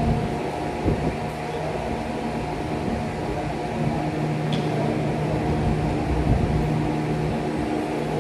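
A machine running steadily, a constant hum of unchanging pitch over a low rumble.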